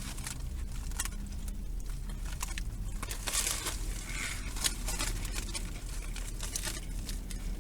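Someone biting into and chewing a cheesesteak close to the microphone: scattered small crackles and rustles over a steady low hum.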